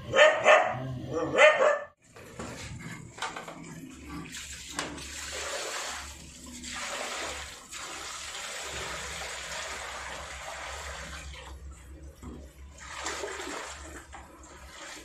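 A dog barking in the first two seconds. Then water is poured from a plastic bucket into a drain opening at the foot of a wall, a steady splashing rush that eases off and comes again near the end.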